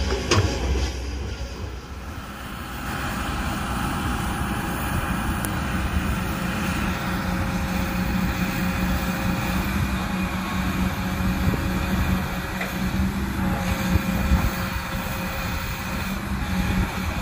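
Kobelco SK200 hydraulic excavator's diesel engine running steadily under load as it digs, a deep hum with a few held tones over it. A sharp knock comes just after the start, and the sound dips briefly about two seconds in.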